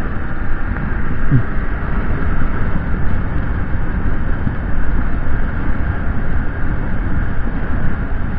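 Wind rushing over the microphone of an action camera on a moving motorcycle: a steady, low rumble that wavers a little in level.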